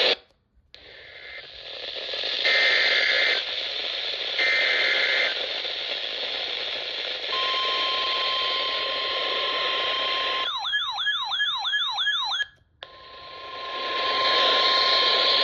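NOAA Weather Radio alert over a hissing radio receiver. Three short screeching bursts of SAME digital header data come first. Then the steady 1050 Hz warning alarm tone sounds, broken for about two seconds by a fast warbling siren-like sweep, and the steady tone resumes.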